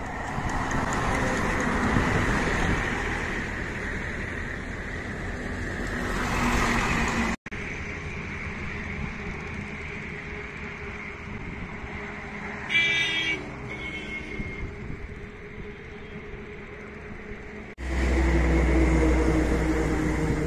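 Highway traffic: a lorry goes by close at the start, then steadier traffic noise with a vehicle horn sounding twice, about 13 and 14 seconds in. A strong low rumble fills the last few seconds.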